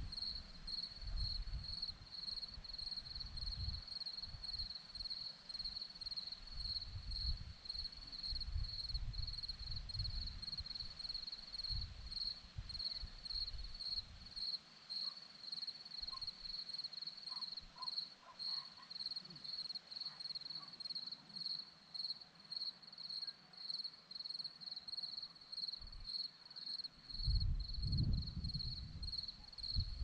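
Crickets chirping in a steady, even pulse a few times a second on one high note. Low gusts of wind rumble on the microphone through the first half and again near the end.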